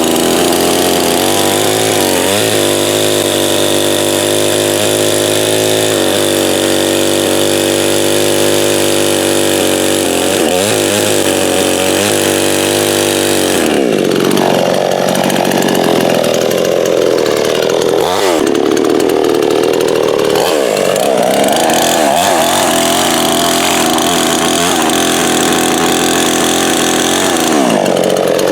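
Coocheer 58cc two-stroke chainsaw running at high revs, held steady for the first half. About halfway through the engine note drops and wavers up and down under the load of cutting wood, then climbs again near the end.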